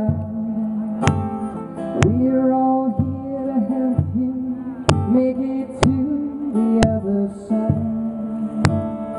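A woman singing a slow honor song in a sustained melody, accompanied by acoustic guitar, with sharp beats falling roughly once a second.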